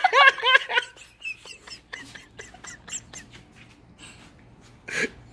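A child's high-pitched giggling for about the first second, then a run of faint clicks and rustles.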